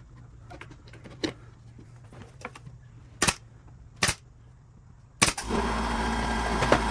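Three sharp pneumatic pin nailer shots, then, about five seconds in, a California Air Tools air compressor kicks on and runs steadily to refill its tank.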